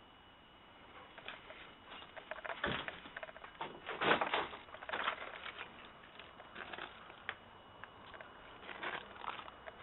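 Footsteps crunching and scraping over broken brick rubble and dry weeds, an uneven run of steps that is loudest about four seconds in and picks up again near the end.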